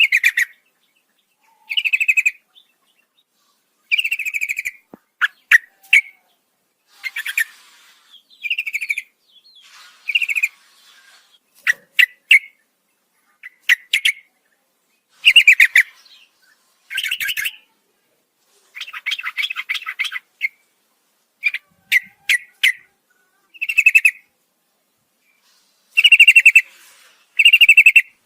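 Yellow-vented bulbul (trucukan) singing. Short bubbly, chattering phrases, each under a second, repeat every second or two.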